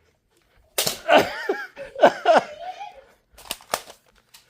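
Sharp snaps and clicks from a foam-dart blaster fight: one loud snap about a second in, then a child's high squealing cries, and a quick run of clicks near the end.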